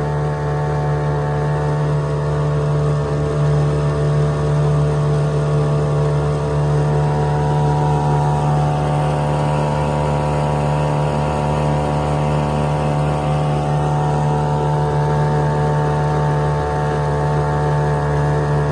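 Hangkai 3.6 hp single-cylinder two-stroke outboard motor running steadily, its pitch wavering only slightly as the boat moves along.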